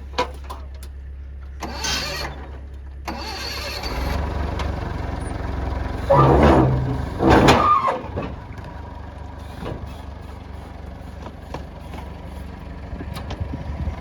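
Forklift engine running steadily, with two loud surges about six and seven and a half seconds in as it works.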